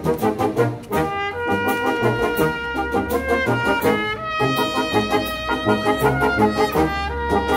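Brass ensemble with percussion playing a lively tune: trumpets and trombones hold melody notes over a regularly pulsing bass line, with light percussion ticks.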